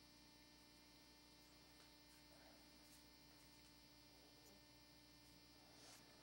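Near silence: a faint steady electrical hum, with a few faint ticks.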